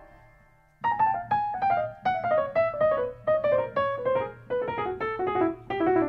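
Background music on a piano-like keyboard: a quick run of separate notes, several a second, stepping gradually down in pitch, starting about a second in after a brief silence.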